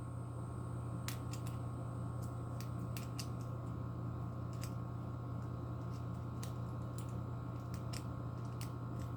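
Small scissors of a Leatherman Free P4 multitool snipping aluminum flashing: a run of short, sharp, irregular clicks. A steady low hum runs underneath.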